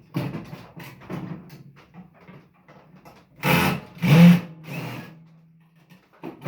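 Metal parts of a microwave being worked loose and handled: a run of light clattering, then two loud clanks about three and a half and four seconds in. The second clank is followed by a short steady whir that fades out.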